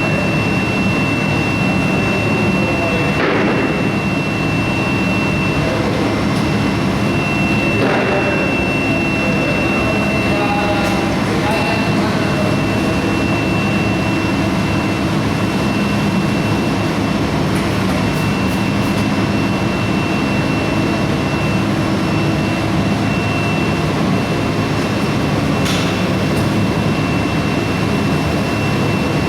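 200 kW induction melting furnace running: a loud, steady industrial drone with a constant high-pitched whine, broken by a few brief clatters.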